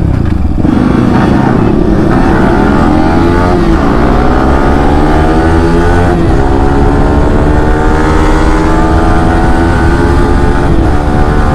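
Yamaha R15 V4's 155 cc single-cylinder engine accelerating hard from low speed, its pitch climbing through the gears with short breaks at upshifts about four and six seconds in.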